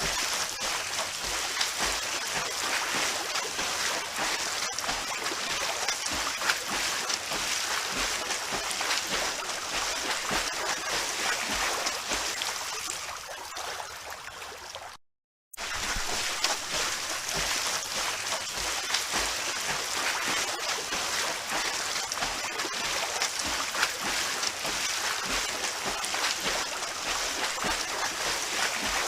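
Continuous splashing and sloshing of water from swimmers in a pool, with small irregular splashes throughout. About halfway through it fades slightly and cuts out for about half a second, then resumes.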